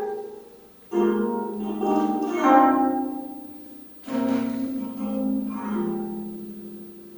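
25-string gayageum playing slow, sparse plucked notes that ring and fade away. One group of notes starts about a second in, and another starts about four seconds in. Each group dies away almost to silence.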